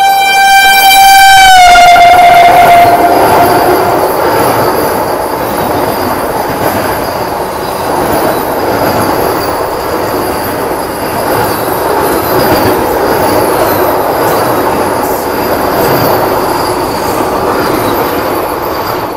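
A train horn sounds one long blast whose pitch drops about a second and a half in, as heard from a train passing by, and fades out about three seconds in. The loud, steady running noise of the train going past follows.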